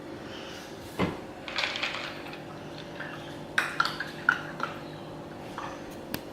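A sharp knock, then a series of light clinks and clatters, like dishes or metal objects being handled, over a steady low hum.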